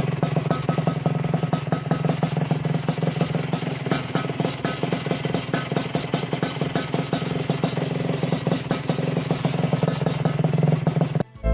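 Yamaha RX-King's single-cylinder two-stroke engine running steadily at idle with a rapid, even pulsing, cutting off about eleven seconds in.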